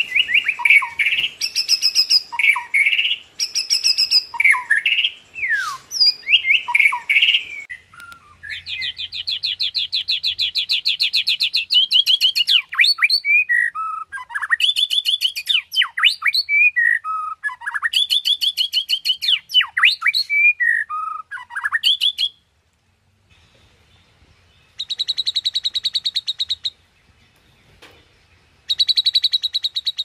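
White-rumped shama (murai batu) singing loudly. First come varied whistled phrases with sliding notes. From about a quarter of the way in, long runs of very fast repeated notes (the "tembakan" shots) mix with steep downward-sweeping whistles. After a short pause near the end, two more brief rapid-fire runs follow.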